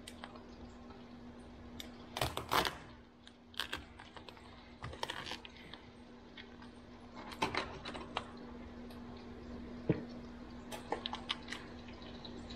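Cooked lobster tail shells being split with a big knife: scattered groups of sharp clicks, cracks and knocks on the cutting board, loudest about two seconds in. A steady low hum runs underneath.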